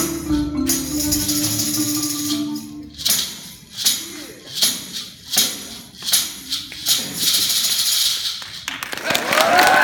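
School marimba ensemble of wooden-bar marimbas with drum kit and tambourine playing. About three seconds in, the marimbas drop out and tambourine and maraca shakes carry on alone on a steady beat, about three every two seconds. Near the end, cheers and whoops start as the piece finishes.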